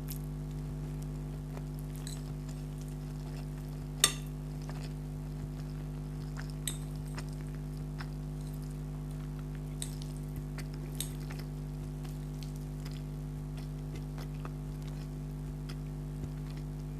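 Spaghetti being eaten with cutlery: scattered soft clicks and clinks of utensils and mouth sounds, with one sharp clink about four seconds in, over a steady low hum.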